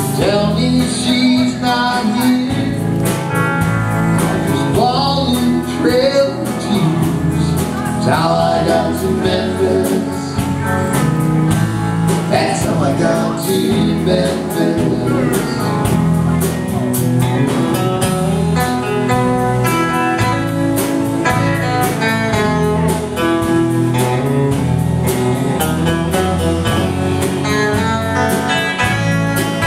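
Live country band playing a mid-tempo song on electric guitars, drums and pedal steel guitar, with gliding notes in the first half.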